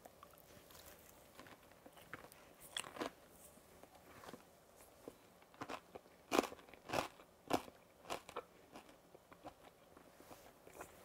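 A person biting into and chewing crispy roast pork belly, its crackling skin breaking in sharp crunches. A few crunches about three seconds in, then a denser run of loud crunches between about six and eight and a half seconds.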